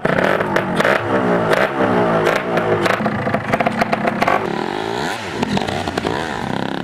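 Motorcycle engine revving up and down, its pitch repeatedly rising and falling, with scattered rattles and clicks.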